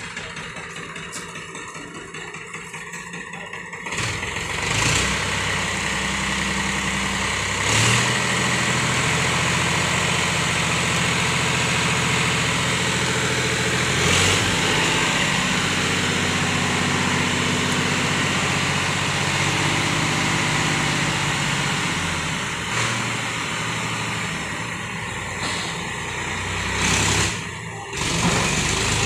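Powertrac 439 tractor's three-cylinder diesel engine idling, then revving up about four seconds in and holding a steady higher speed while it drives the hydraulic tipper that raises the trailer bed. It eases off somewhat near the end.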